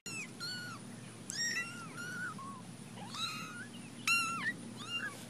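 Very young kittens mewing: a run of short, high-pitched mews, each rising and falling, with the loudest about four seconds in.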